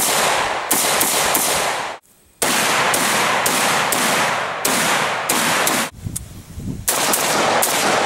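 AR-15-style rifle fired in quick semi-automatic strings, shots a fraction of a second apart, each leaving a ringing echo. The shooting cuts off suddenly about two seconds in and again about six seconds in, then starts again.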